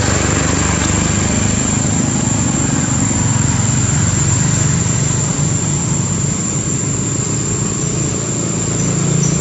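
An engine running steadily, a low hum that barely changes, with a thin, steady high-pitched tone over it.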